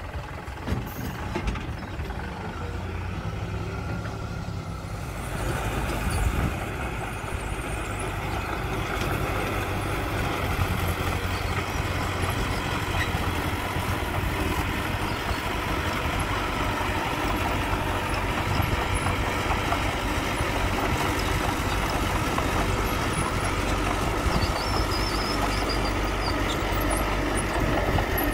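Diesel engines of heavy machinery running: a dump truck tipping its load of soil, then a small crawler bulldozer working as it pushes the soil. About five seconds in the sound grows louder and stays steady.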